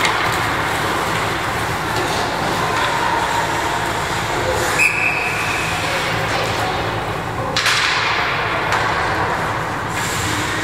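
Ice rink ambience during a youth hockey game: a steady wash of skating and arena noise, cut by a short referee's whistle blast about five seconds in as play stops. A sudden burst of louder noise follows a couple of seconds later and fades.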